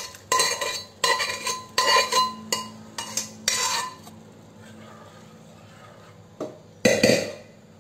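A metal spoon clinking and scraping against a bowl as thick cooked chana dal is scooped into a kadhai, in quick strokes through the first few seconds. It goes quieter after that, then a ladle knocks against the kadhai a few times near the end as the dal is stirred in.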